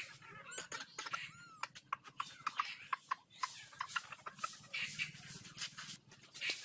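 Animal sounds: many quick, irregular clicks and ticks, with a couple of short chirping calls in the first two seconds.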